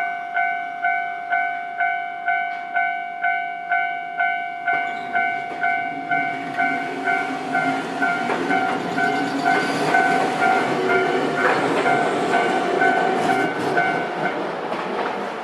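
Level crossing warning bell ringing its repeated two-tone clang about three times a second. From about five seconds in, a Nankai electric train approaches and passes, wheels clacking over the rail joints, louder than the bell. The bell stops near the end.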